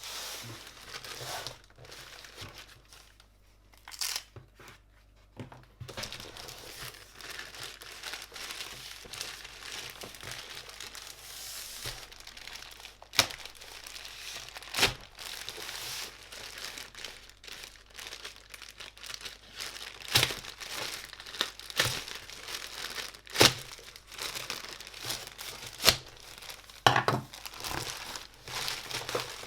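Packaging crinkling and rustling as it is handled and torn open, with sharp clicks and knocks every few seconds.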